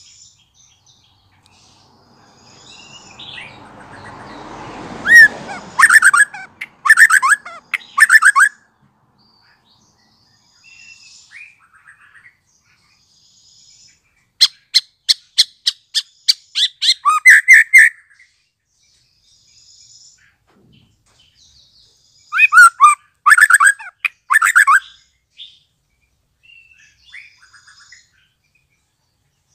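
Young white-rumped shama, just moulted out of its speckled juvenile plumage, singing three loud bursts of rapid, repeated high notes, with soft calls between them.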